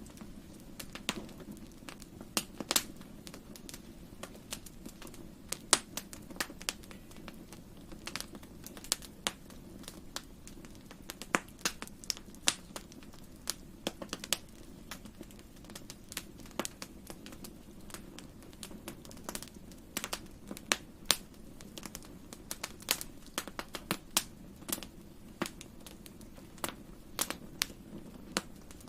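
Wood fire crackling in a fireplace: irregular sharp pops and snaps, several a second, some much louder than others, over a steady low rumble of the burning fire.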